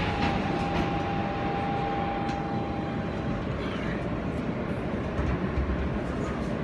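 Siemens-powered R160B subway car rolling and slowing into a station: a steady rumble and hiss of wheels and running gear, with a thin steady whine for the first three seconds or so.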